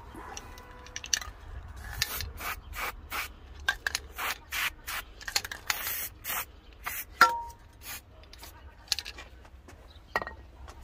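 Metal engine-mount bracket and hand tools being worked into place: a run of short scrapes and rubs, with a sharp metallic clink about seven seconds in that rings briefly.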